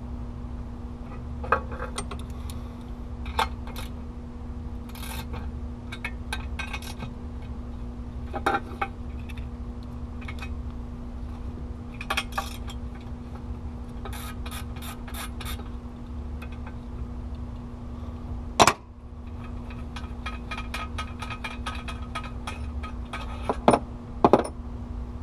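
Metal hand tools clinking and clicking against engine parts while bolts are worked loose on a DT466 diesel engine, with short runs of rapid ticks and one sharp knock about three-quarters of the way through, over a steady hum.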